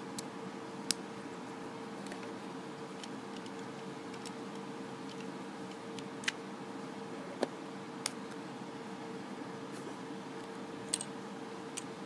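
Plastic Lego bricks clicking and tapping as a small puzzle box is handled and its pieces are pulled apart: about half a dozen sharp, scattered clicks over a steady hum.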